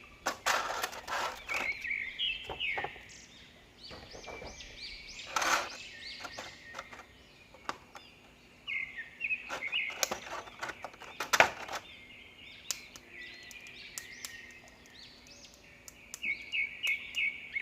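Small birds chirping in short repeated phrases, with scattered sharp clicks and knocks throughout, the loudest knock about two-thirds of the way in.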